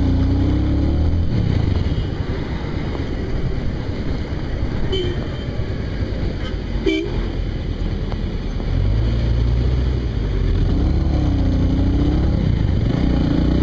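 Kawasaki cruiser motorcycle engine running under way, quieter for a few seconds mid-way and building again from about nine seconds in. Two short vehicle-horn toots about five and seven seconds in.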